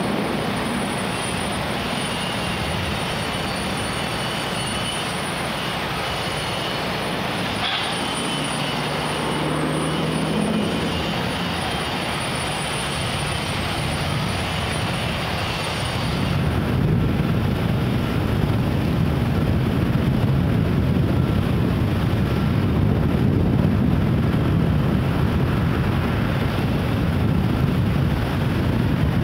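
Steady outdoor background rumble and hiss with a faint high steady whine. About sixteen seconds in, the whine stops and a louder, deeper rumble takes over.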